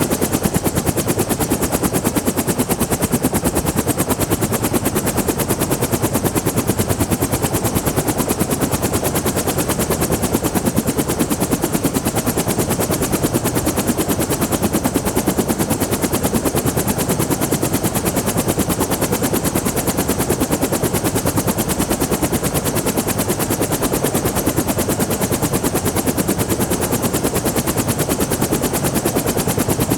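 Bell 212 helicopter running, heard from outside: its two-bladed main rotor beats in a fast, even, steady chop.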